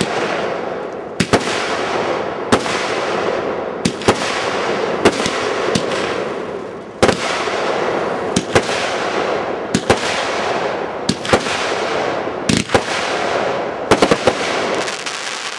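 Consumer aerial fireworks firing in a steady sequence: sharp bangs about every second or so, often two close together, over a continuous hiss and crackle of burning stars. A quick string of pops comes near the end.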